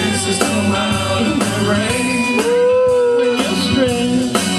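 Amateur live rock band playing, with drum and cymbal hits and a man singing into a microphone.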